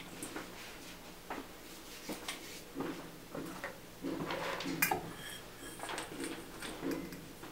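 Dried herbs and utensils clinking and clattering against a metal bowl as herbs are handled and measured out, in scattered small knocks with the sharpest clatter about five seconds in, over a faint steady hum.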